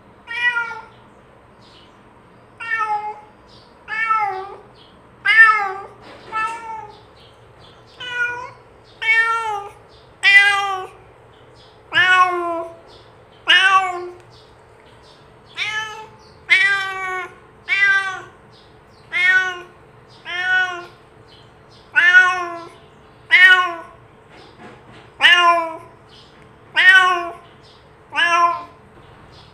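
Domestic cat meowing over and over, about twenty loud meows spaced a second or so apart, each rising and then falling in pitch.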